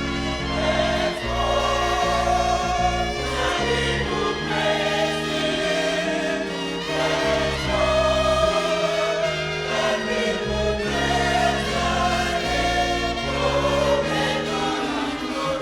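Gospel music with a choir singing over sustained chords and a held bass line.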